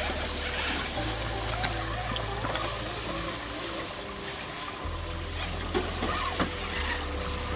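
Radio-controlled rock crawler's electric motor and gear drivetrain whining as it crawls over wet rocks, with shallow creek water trickling, and a couple of sharp clicks about two thirds of the way in.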